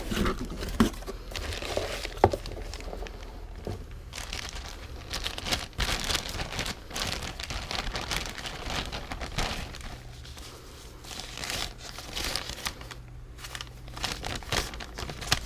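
Crinkling and rustling from something being handled, with scattered sharp clicks and knocks, the sharpest about two seconds in.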